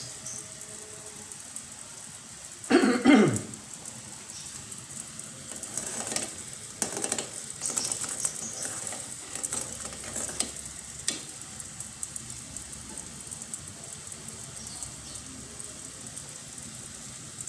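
A pot of jamu with melting rock sugar boiling on a stove: a steady bubbling hiss with fine crackles. About three seconds in there is a louder clatter of cookware, and a few lighter knocks come later.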